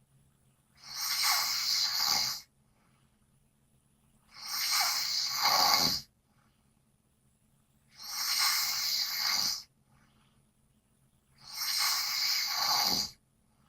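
A sleeping person snoring loudly: four long, breathy snores, about one every three and a half seconds, with quiet between them.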